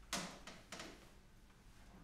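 Two soft knocks about half a second apart as a person sits down and settles onto a piano bench.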